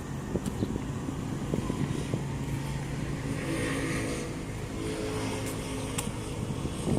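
A motor vehicle's engine running, a steady hum with a few pitched tones that swell slightly through the middle, and a sharp click near the end.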